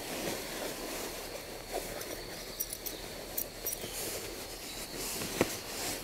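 Soft rustling of hammock fabric and clothing as a person settles to sleep, over a faint steady high insect note, with scattered small ticks and one sharp click about five and a half seconds in.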